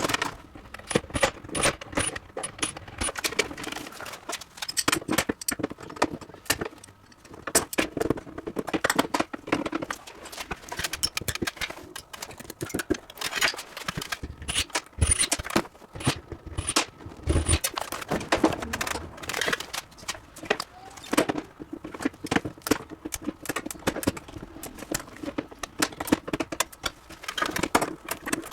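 Steady, irregular clinking, clattering and scraping of small hard objects being handled and moved, with many sharp knocks close together.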